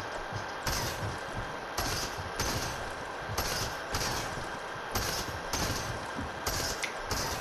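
Video game gunfire: shots in short, irregular bursts roughly every half second to second, over the game's steady background audio.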